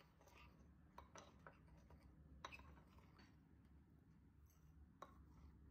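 Near silence: faint room tone with a low hum and a few soft clicks.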